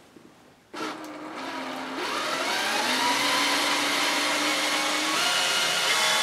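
Cordless drill backing a screw out of a wooden floor panel. The motor starts about a second in, speeds up over the next couple of seconds with a rising whine, then runs steadily and steps up in pitch again about five seconds in.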